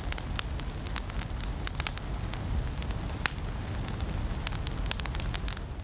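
Firewood burning in a campfire, crackling and popping at irregular moments over a steady low rush of flame.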